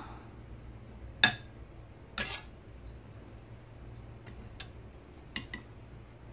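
Spoon and dishes clinking during a meal: a sharp clink about a second in, a short clatter about two seconds in, then a few lighter taps against a plate and steel bowl.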